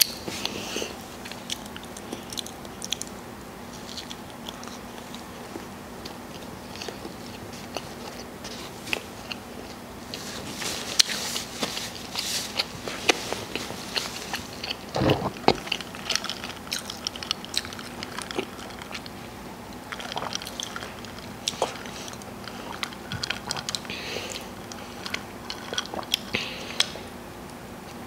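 Close-up mouth sounds of biting and chewing a bacon double cheeseburger: many small crisp clicks and crackles, thickest about ten to thirteen seconds in. A single dull thump comes about halfway through.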